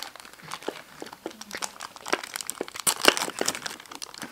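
Clear plastic blister packaging and cardboard crinkling and crackling as they are handled, in irregular clicks that grow louder about two to three seconds in.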